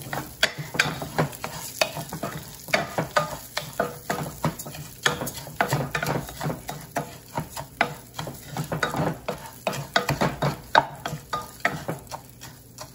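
Wooden spoon stirring dry long-grain rice in hot oil in a nonstick pot: irregular scraping strokes across the pan bottom as the grains rustle, with the oil sizzling while the rice toasts before the liquid goes in.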